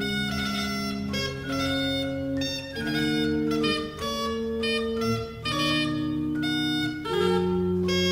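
Organ playing early keyboard music in several voices, with sustained notes held together that change about once a second.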